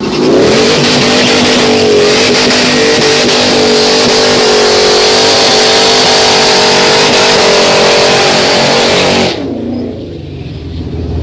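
V8 drag car doing a burnout on slicks: the engine held at high revs with the tyres spinning, a loud steady, slightly wavering note for about nine seconds that drops off suddenly when the driver lifts, leaving a lower rumble.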